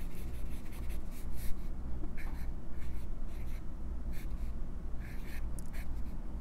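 Steel fine nib of a Lamy Safari fountain pen scratching across journal paper in short, irregular strokes as it writes and draws.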